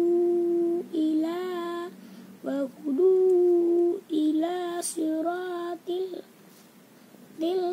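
A young child reciting the Quran aloud in a slow chanted melody: long held notes in short phrases, with a pause of about a second near the end before the next phrase begins.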